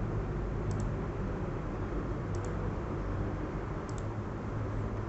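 Computer mouse double-clicks, three pairs about a second and a half apart, over a steady low hum.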